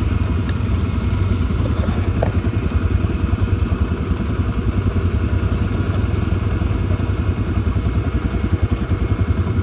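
ATV (quad bike) engine running steadily, heard from the rider's seat, with other ATVs running alongside.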